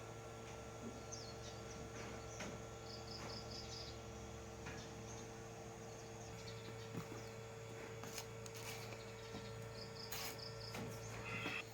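Faint cricket chirping, short groups of a few rapid pulses repeated every few seconds, over a steady low electrical hum with a few light clicks.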